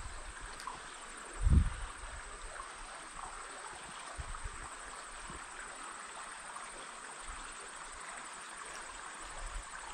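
Steady flow of river water, an even wash of sound, with a short low thump about a second and a half in.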